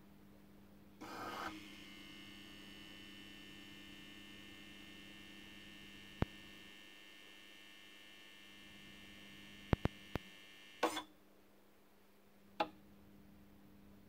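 DMZ-Universal electrode puller running through a pipette pull, with a steady electrical hum throughout. A short whirr comes about a second in. A higher, many-toned whine is added while the heating filament glows, and stops about eleven seconds in. Sharp single clicks fall around six and ten seconds, a brief clatter about eleven seconds in, and one more click near the end.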